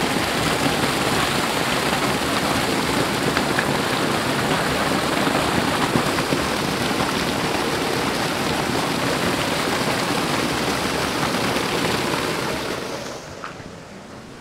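Pumped well water pouring and splashing steadily from a spout, dying away near the end.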